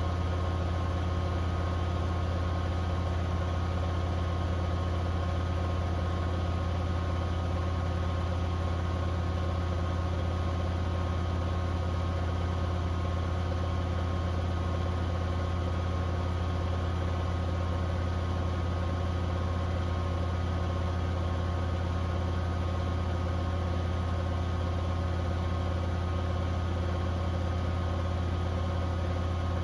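Beko WTK104121W washing machine running its first intermediate spin on the eco 60°C programme: a steady, unchanging deep motor hum as the drum turns with wet, sudsy laundry.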